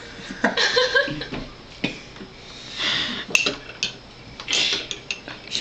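A spoon clinking against a bowl, with crunchy chewing of dry cat food soaked in milk.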